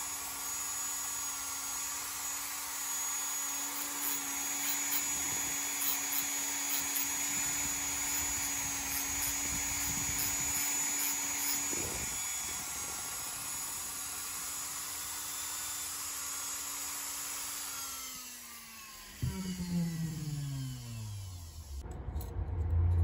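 Dremel rotary tool fitted with a cutting stone running at a steady high speed, then switched off about eighteen seconds in and winding down, its pitch falling. A brief knock comes near the middle.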